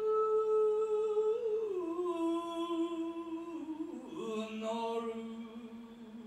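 A solo voice drawing out a long, wordless sung melisma in biwa-gatari chanting style, with no biwa playing. It holds each note, then steps down in pitch three times to a lower sustained tone.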